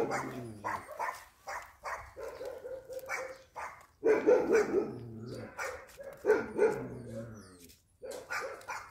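A dog barking and whining, with a few longer drawn-out calls of about a second each and short barks between them.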